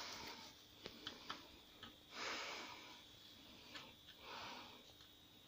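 Faint metallic clicks and ticks of a tool working the pinch bolts of a Shimano crank arm as they are tightened, several in the first two seconds. Soft swells of hissing noise come near the start, about two seconds in (the loudest) and about four seconds in.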